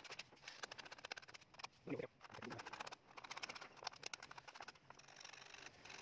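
A small hand scraping tool rasping across the wooden face of a table tennis blade, scraping it clean in a quick run of fine, short strokes.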